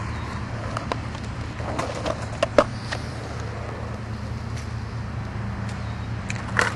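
Steady low outdoor hum with a few scattered knocks, one sharp knock about two and a half seconds in and another near the end.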